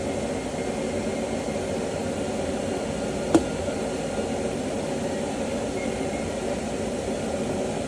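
A steady mechanical hum, with one sharp click a little over three seconds in.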